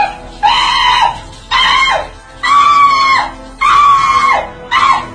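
A man crying out over and over under cold shower water: five high, drawn-out yelps about a second apart, each dropping in pitch at its end.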